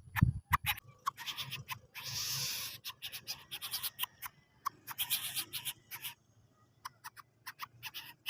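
Lesser coucal making odd sounds: a run of sharp clicks with short hissing bursts about two seconds and five seconds in, the clicks thinning out near the end.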